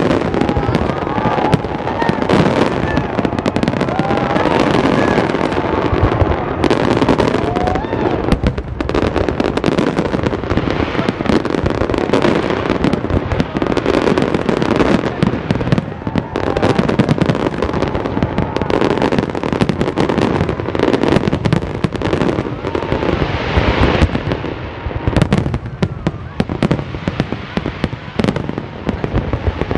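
Fireworks display: a dense, unbroken barrage of bangs and crackles from many shells bursting at once.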